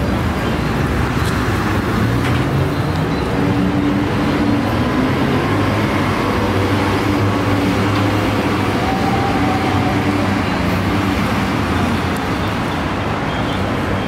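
Steady rumble of a vehicle in motion or of traffic, with a low hum running through it.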